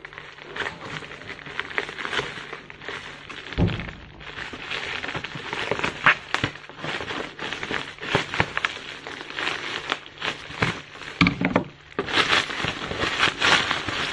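Plastic bubble wrap crinkling and crackling as it is pulled and worked open by hand, with a dull knock about four seconds in and another later on.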